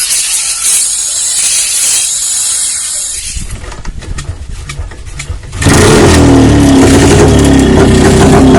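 A hiss for the first few seconds, then a quieter stretch of scattered clicks. Just under six seconds in, the 1975 Rajdoot's two-stroke single-cylinder engine is running loudly and steadily, brought back to life after its carburettor was cleaned of dirt and rust following long disuse.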